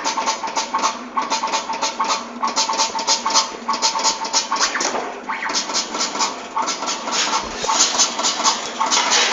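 Keychain-making machine running: a rapid mechanical clatter of about five clicks a second over a steady hum, with a few short breaks in the rhythm.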